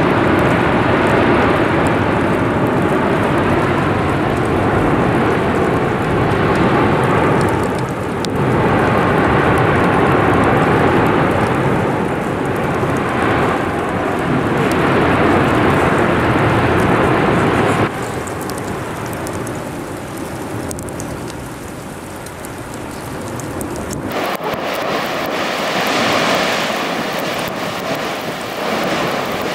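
Volcanic eruption roaring continuously, the steady jet-like roar of lava fountaining from the vent, swelling and easing in loudness. It drops noticeably about 18 seconds in. From about 24 seconds the deep rumble falls away, leaving a thinner hiss.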